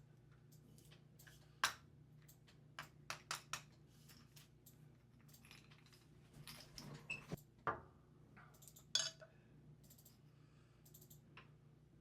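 Scattered light clicks and taps of small metal and plastic parts of a steering wheel spinner knob being handled and set down while it is taken apart, with a few sharper knocks among them.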